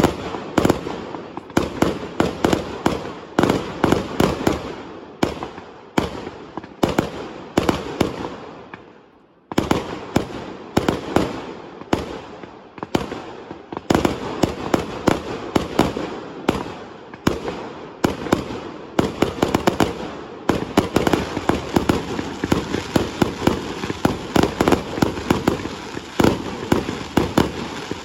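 Fireworks going off in quick succession: many sharp bangs, several a second. About nine seconds in the bangs die away briefly, then start again suddenly and grow denser, into an almost continuous rattle of reports near the end.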